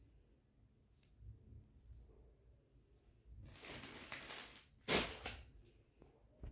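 Cloth rustling as a fabric drawstring bag and a folded suit are handled and moved. There is a long, louder rustle about three and a half seconds in and a sharper, loudest one at about five seconds.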